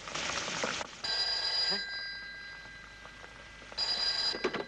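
Old desk telephone's bell ringing twice, each ring about a second long with a ringing tail, then a few clicks near the end as the receiver is picked up. A short rush of noise comes before the first ring.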